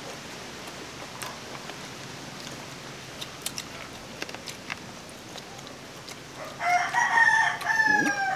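A rooster crows near the end, one drawn-out call of about two seconds that sags in pitch as it ends. Before it there are only small clicks and smacks of people eating by hand.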